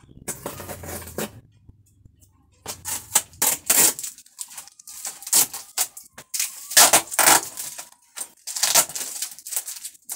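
A cardboard carton of bottled water being opened by hand: repeated bursts of scraping, tearing and rustling of cardboard and packing tape, coming in clusters every second or so.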